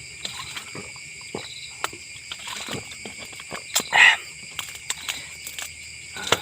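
Steady chorus of crickets and other insects with several high, even trills, broken by scattered soft clicks and one louder brief rustle-like sound just before four seconds in.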